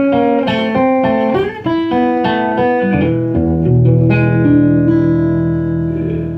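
Solo archtop guitar playing a quick picked single-note blues run, then a final chord that rings and slowly fades, closing the song.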